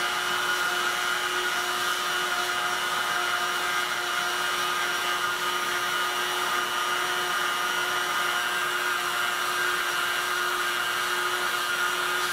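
Handheld heat gun blowing steadily, an even rush of air with a constant whine, as it heats a plastic intake mesh to soften it.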